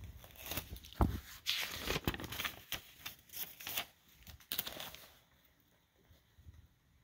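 Paper pages of a lined notepad being flipped over and handled: a crisp rustling that lasts about five seconds, with a thump about a second in.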